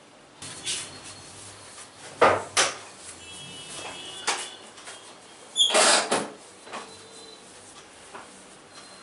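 Hand strokes of a head, neck and back massage: a handful of sharp slaps and snaps, the loudest and longest cluster about six seconds in.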